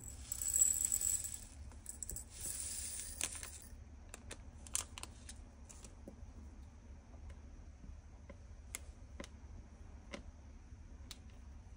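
Diamond-painting drills pouring from a small zip bag into a plastic storage bottle in two rattling pours in the first few seconds. Then scattered light clicks as the plastic bottle and its cap are handled.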